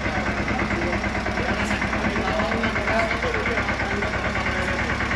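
Swaraj mini tractor's diesel engine running steadily with an even, fast beat, with faint voices in the background.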